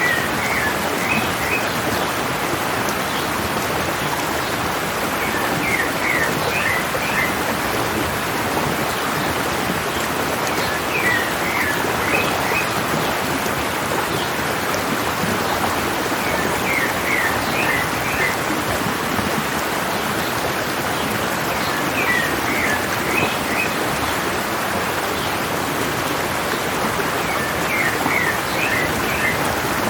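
Stream water running steadily down a mountain, with a short bird song phrase of several quick notes repeating about every five and a half seconds.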